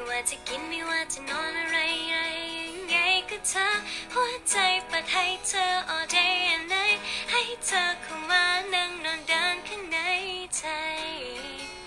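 A woman singing with vibrato, accompanying herself on a strummed acoustic guitar.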